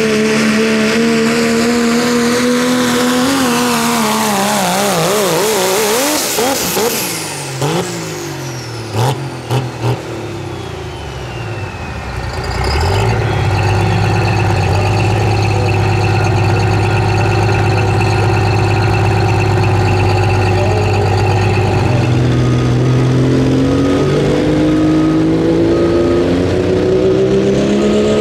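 Diesel pickup engines at a truck pull. The first engine runs hard under load, then falls and wavers in pitch as it slows, with a high whistle sliding down and a few sharp pops. It then settles into a steady lower run, and near the end another diesel revs up with a rising pitch to start its pull against the sled.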